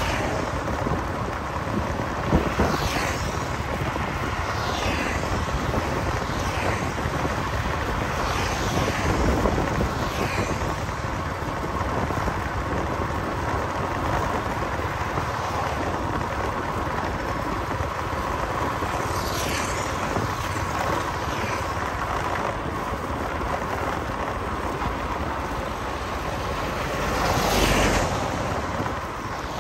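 Steady road and wind noise from a moving vehicle in street traffic, with other vehicles passing by several times, each falling in pitch as it goes past; the loudest pass comes near the end.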